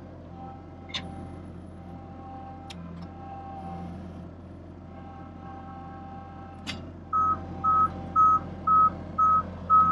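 Truck engine running steadily with a few light clicks, then about seven seconds in a reversing alarm starts beeping, about two beeps a second, louder than the engine.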